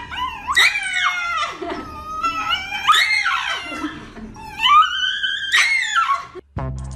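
Shiba Inu screaming in a run of high, wavering cries that swoop up and down in pitch, about one a second, as its nails are clipped: the breed's dramatic protest scream at being handled.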